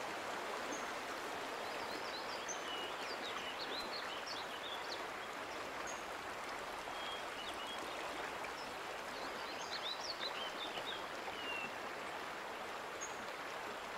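A shallow creek running over rocks: a steady rush of water, with scattered high bird chirps.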